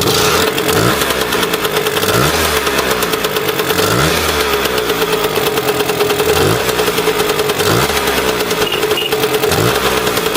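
Lambretta scooter's two-stroke single-cylinder engine running steadily and loudly, running again on a fresh dry spark plug.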